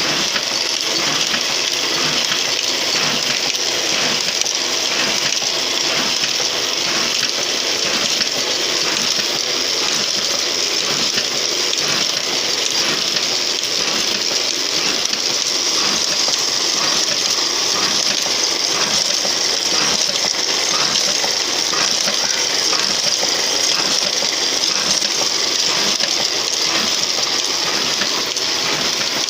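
Toko offset printing press running steadily, a continuous mechanical clatter with a faint, even beat from its repeating print cycle.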